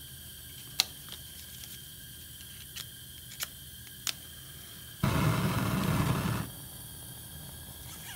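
A few light clicks of a matchbox being handled, then a match struck about five seconds in and the Bunsen burner's gas catching: a loud rushing flare that lasts about a second and a half and dies down.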